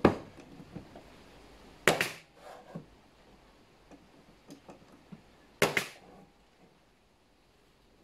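Pneumatic nailer firing into drawer-box wood: sharp shots about two seconds in and again near six seconds in, each a quick pair of cracks with a short ring after.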